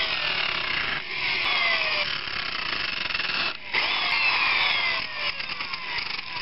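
Electric drill spinning a coarse 40-grit sanding disc, grinding cured Gorilla Glue foam filler off the leading edge of a foam model-plane wing. A steady gritty sanding noise with a whine that slides down in pitch again and again, and a short break about three and a half seconds in.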